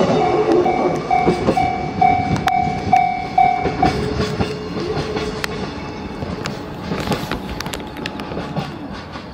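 DF200-hauled container freight train pulling away, its wagon wheels clicking over the rail joints and fading into the distance. A repeating ringing tone, about two a second, stops about four seconds in.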